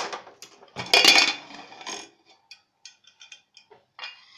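Aluminium pressure cooker lid, gasket and whistle removed, being worked open and lifted off: a sharp click at the start, the loudest metal clattering and scraping about a second in, then a few light ticks.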